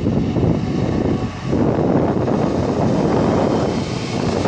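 EWS Class 66 diesel locomotive 66113 approaching and passing close, its two-stroke V12 engine working as it hauls a freight train, with wind buffeting the microphone. The sound dips briefly about a second and a half in.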